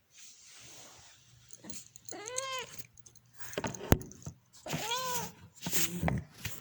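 A domestic cat meowing twice, each meow rising and then falling in pitch, about two and a half seconds apart. Between the meows comes a single sharp click, the loudest sound, amid light rustling.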